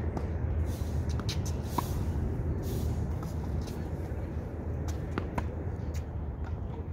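A few scattered sharp knocks of a tennis ball over a steady low rumble.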